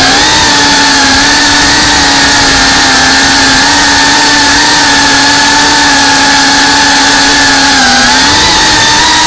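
FPV quadcopter's motors and propellers whining at a steady pitch over a loud rush of air, picked up by the onboard camera. The pitch dips briefly just at the start and again near the end as the throttle changes.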